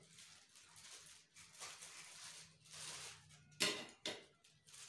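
Clear plastic packaging around chandelier parts crinkling as it is handled, with two sharp clinks of hard parts about three and a half seconds in, half a second apart.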